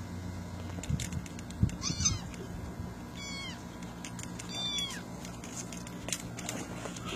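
Young kittens mewing: three high, thin mews about a second and a half apart, with a few sharp clicks and knocks around them.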